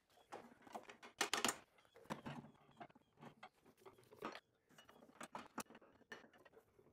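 Faint, irregular clicks, rattles and rustles of a gloved hand handling and fitting parts in a Classic Mini's front suspension, loudest about a second in.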